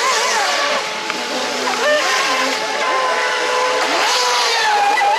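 Radio-controlled model speedboat running at speed close by, its motor whining and rising and falling in pitch as it turns, with spray hissing off the hull.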